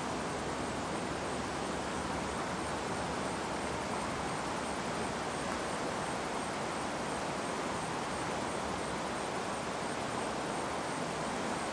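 A steady, even hiss of outdoor background noise, with no distinct knocks or calls standing out.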